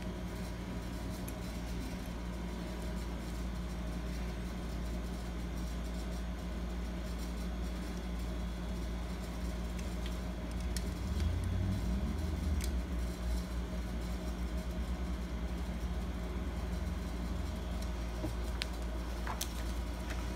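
A steady low mechanical hum, swelling briefly about halfway through. A few faint clicks come from the metal lock parts being handled.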